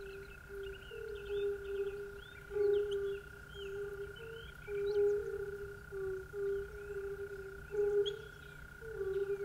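Evening lakeside ambience of frogs calling: short, repeated low notes one or two a second, with scattered higher chirps and a steady high tone underneath.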